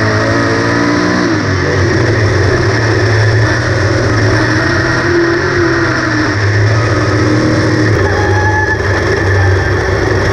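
Small-block V8 of a 358 modified dirt-track race car running hard at racing speed, heard on board, its pitch dipping and climbing as the driver gets off and back on the throttle through the turns.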